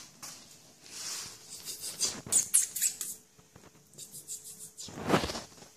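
Kittens scrabbling and rustling about, an irregular patter of scratchy rustles and scrapes, with a louder scrape about five seconds in.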